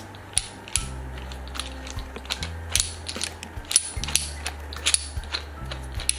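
Ventilator circuit hanger being turned and seated on its mounting base: irregular clicking and ratcheting of the parts. Background music with a low bass line plays underneath.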